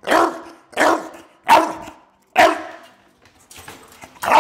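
A bulldog barks repeatedly from inside a wire crate: four loud, evenly spaced barks, a short pause, then another bark at the end. This is protest barking at being kept in the crate.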